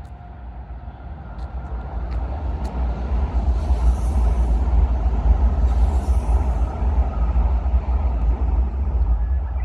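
Train passing close by: a heavy low rumble that builds over the first few seconds and stays strong, with two short hissing rushes in the middle.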